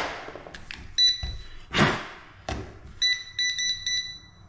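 A few sharp knocks and thumps, as of a cordless drill being handled and set down on a hard floor. About three seconds in, a rapid run of short, high electronic beeps starts.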